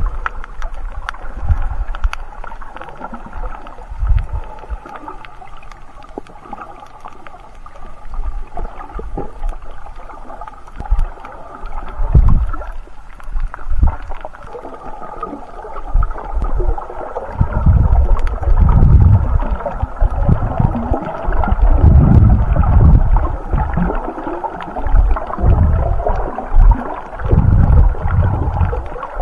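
Muffled underwater sound picked up by a submerged camera while snorkelling: water rushing and sloshing against the camera, with repeated low surges that grow stronger and more frequent about halfway through.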